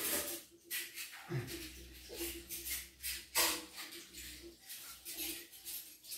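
Plastic Lego pieces clicking and rattling as they are handled, a run of short irregular clicks.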